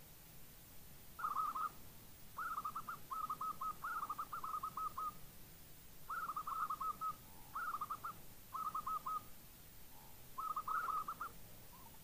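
Zebra doves (perkutut) cooing: about six bursts of rapid, stuttering coo notes, one of them longer, with short pauses in between.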